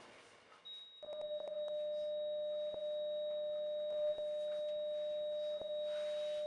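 Heart monitor flatline tone: one continuous steady beep starting about a second in, the sign that the patient's heart has stopped. A few faint clicks sound over it.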